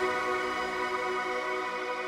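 Background music: a held, sustained chord, its deep bass dropping out at the start.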